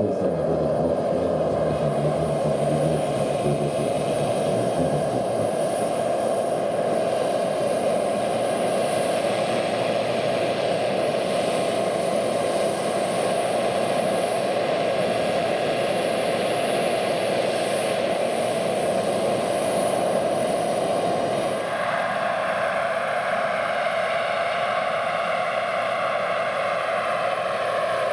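Large-scale RC MH-53 helicopter running under its JetCat PHT 3 turbine: a steady turbine hiss mixed with main and tail rotor noise as it flies. About 22 seconds in the sound turns thinner and higher.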